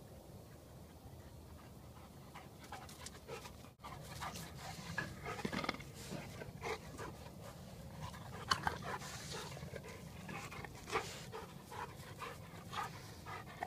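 Labrador retriever panting close to the microphone in quick, uneven breaths, starting about four seconds in after a faint quiet start.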